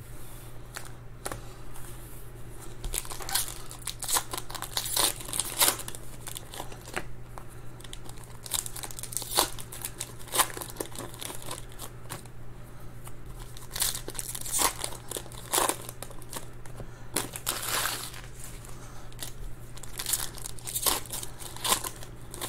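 Foil wrappers of Panini Certified football card packs crinkling and tearing as they are handled and ripped open by hand, in irregular crackling bursts. A low steady hum runs underneath.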